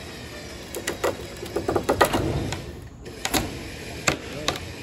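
An irregular run of sharp knocks and clatters, the sound of wood and hardware being struck and shifted during demolition work, loudest about two seconds in with a short lull near three seconds.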